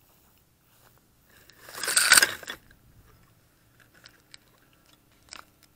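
A crunching rustle of plant stalks and leaves, loudest about two seconds in, followed by a few faint clicks.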